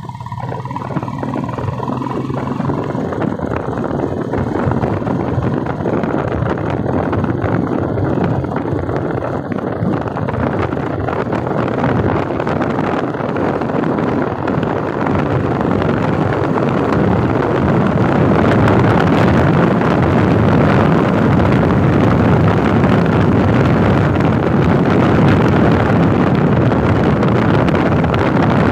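Motorcycle on the move, its engine mixed with heavy wind rush on the handlebar-mounted microphone. The noise grows louder over the first half as speed picks up, then holds steady.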